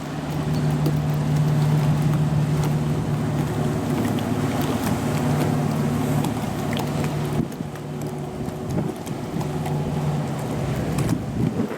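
Small passenger ferry's engine running with a steady low hum, which eases briefly about two thirds of the way through and then returns, with wind noise on the microphone.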